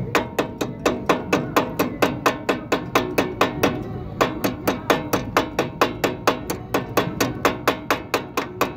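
Rapid, even metallic tapping at about four or five strikes a second: a heavy ring spanner used as a hammer, striking a thin metal rod held like a punch against a motorcycle's broken silencer mount to work it loose.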